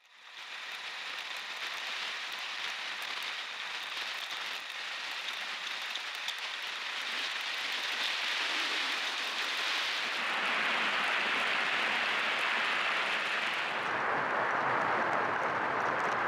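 Rushing wind on the microphone and tyre noise on asphalt from a Schwinn Krate muscle bike coasting fast downhill: a steady hiss that grows louder and deeper as the speed builds, stepping up about ten seconds in and again near the end.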